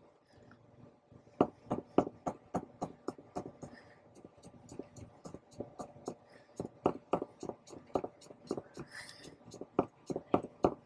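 Kitchen knife slicing fresh ginger thin for julienne on a cutting board: quick, regular taps of the blade on the board, about three or four a second, starting about a second and a half in.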